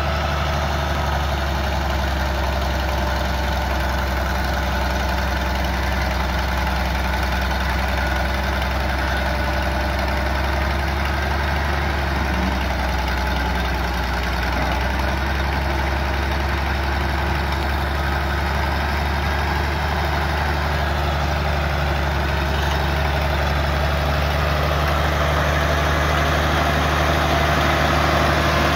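1969 Minneapolis-Moline G1050's six-cylinder LP-gas engine running at a steady idle, growing a little louder near the end.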